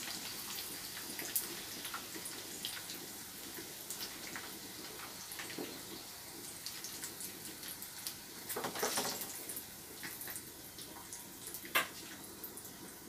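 Chicken 65 pieces frying in shallow oil in a non-stick pan: a steady sizzle with small crackles. A utensil knocks and scrapes against the pan as the pieces are lifted out, loudest about nine seconds in and again near the end.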